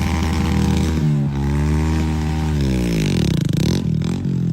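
Heavy diesel engine of earth-moving equipment being revved. The pitch rises, dips briefly about a second in, climbs again, then falls away near the end.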